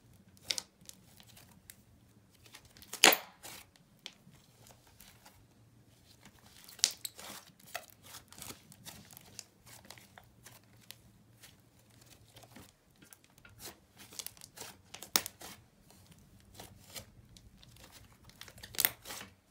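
Butter slime being stretched, squeezed and folded by hand, giving scattered sticky pops and crackles. The loudest pops come about three seconds in and near the end.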